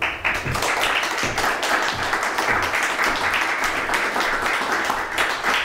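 Audience applauding: many people clapping steadily, starting all at once.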